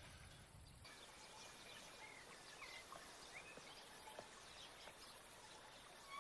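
Faint outdoor country ambience with a few scattered short bird chirps, after a low indoor hum cuts off about a second in.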